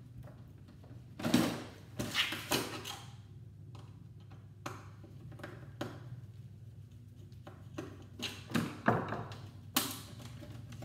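Hand tools and metal parts knocking and clicking against the steel back of a flatscreen TV as its bolts are taken out: a string of sharp knocks at uneven intervals, loudest about a second in and near the end, over a faint low hum.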